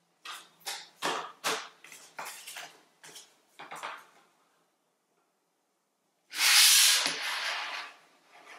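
A sheet of paper being handled and folded on a tabletop: a quick run of short rustles and creases, then, about six seconds in, a louder, longer scrape of paper sliding and being pressed flat.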